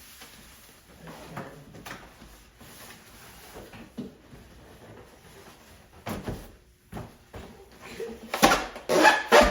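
Cardboard box and packaging being handled and opened: scattered rustles and knocks, loudest and busiest near the end.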